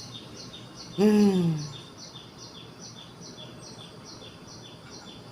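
A bird chirping rapidly and evenly, short high falling notes at two alternating pitches, about three a second. About a second in, a brief low falling vocal sound is louder than the chirps.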